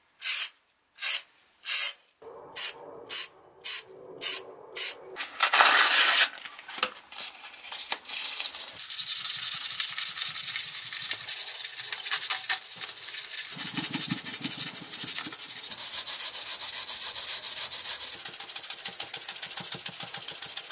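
Aerosol filler primer spraying in about ten short bursts and then one longer burst about six seconds in. From about nine seconds, steady hand sanding of the grey-primed steel handles with sandpaper, a continuous scratchy rubbing.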